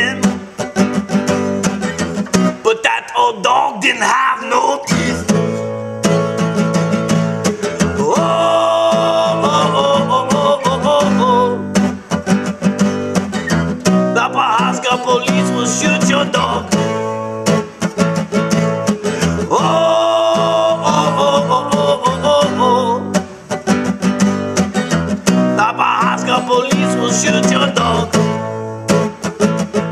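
Acoustic guitar strummed steadily in a country-style song, with a voice singing over it.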